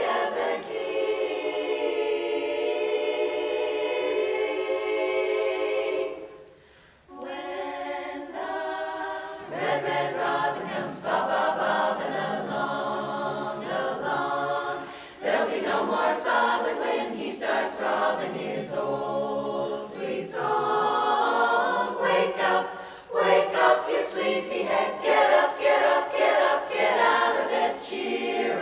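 Women's chorus singing a cappella. A long chord is held for about six seconds, then breaks off briefly, and the singing goes on in shorter phrases with brief stops between them.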